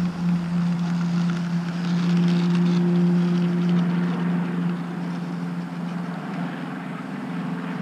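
Electric motor and propeller of an RC model Spitfire humming steadily at low throttle during the landing rollout, fading after about four seconds, with wind noise on the microphone.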